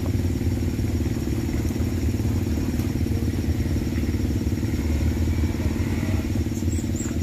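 A vehicle engine running steadily at low revs, with a dense, fast pulse.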